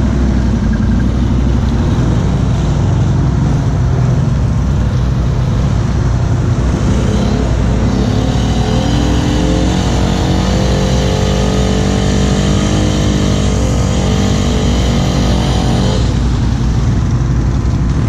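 ATV engine running steadily as a four-wheeler churns through a deep mud hole. About halfway through the engine revs up, its note climbing, then drops back about two seconds before the end.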